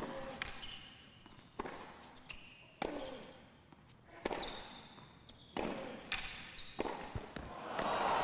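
Tennis rally on a hard court: racket strokes on the ball about every second and a quarter, each hit echoing, with short high shoe squeaks between shots. Crowd applause starts near the end as the point finishes.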